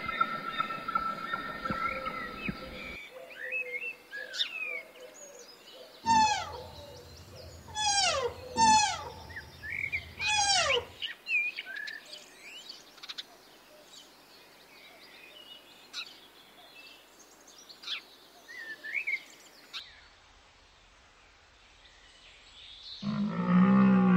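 Birds calling: several loud, steeply falling whistled calls in a row, then scattered short chirps. Near the end, a louder, low pitched animal call lasting about a second and a half.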